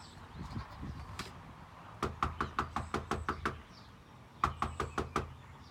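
Knuckles rapping on a door: a quick run of about eight knocks, then after a short pause about five more. The knocking is meant to excite the dog before the door opens.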